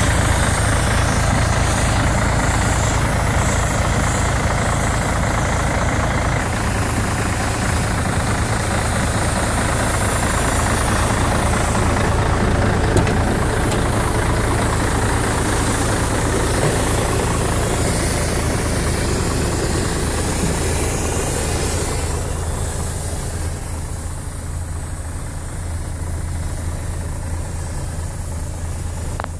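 A Volvo FH12 420's 12-litre straight-six diesel idling steadily. In the last several seconds the sound grows duller, heard from inside the cab.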